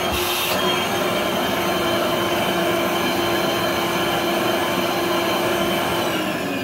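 Rainbow water-filter vacuum's motor running steadily with an even whoosh and a constant hum; near the end its pitch starts to glide down as the motor slows.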